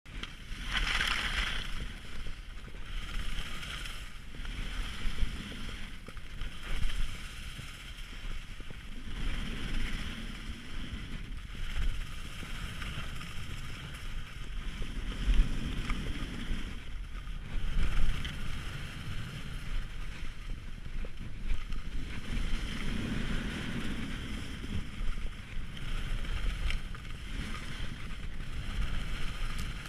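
Wind rushing over an action camera's microphone while skiing, with the hiss of skis sliding over snow swelling and fading through the run.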